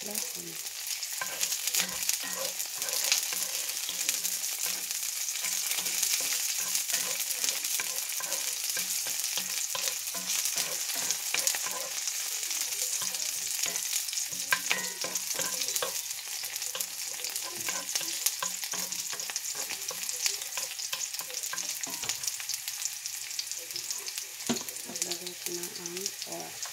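Garlic, onion and green onion sizzling and crackling in hot oil in a cast-iron skillet, stirred with a wooden spatula.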